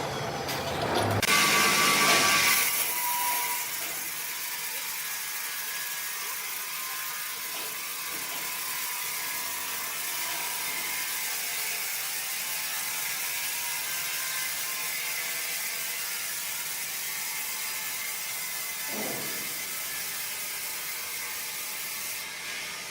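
Sawmill machinery running with a steady, high-pitched mechanical noise and faint steady tones. It is louder for about two seconds near the start.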